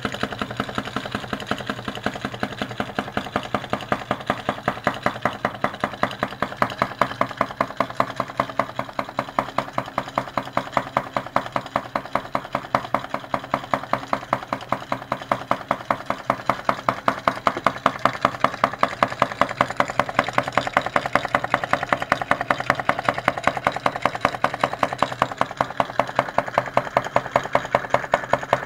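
Homemade candle-heated hot-air Stirling engine running, its flywheel turning a small generator: a steady mechanical clicking at about four beats a second, growing somewhat louder in the second half.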